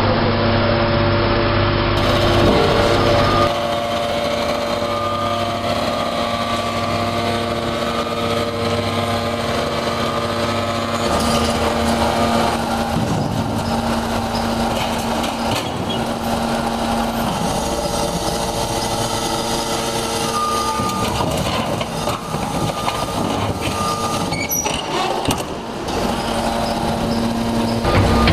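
Hydraulic metal scrap baler running: a steady machine hum with a pump whine, changing pitch a couple of times, with a few metal knocks near the end.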